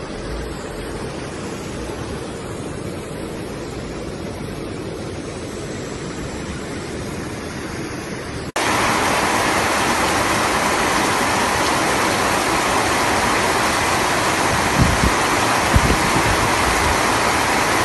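Steady rush of surf and floodwater washing over a seawall and promenade. About eight and a half seconds in it switches suddenly to a louder, even hiss of floodwater and rain, with a couple of low thumps near the end.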